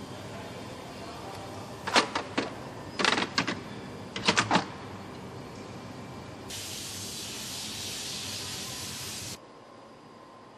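Sharp metallic clanks in three quick clusters as parts of an industrial 3D printer's build unit are handled, over a steady machine hum. Then a steady hiss lasting about three seconds, which stops abruptly.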